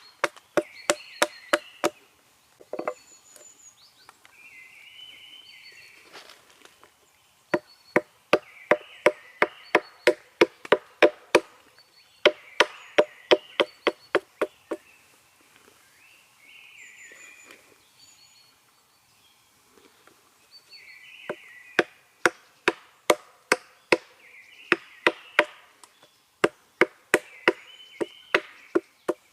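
Hatchet chopping a small piece of wild cherry wood, quick light strikes about three a second in several runs with pauses between. Birds sing in the pauses.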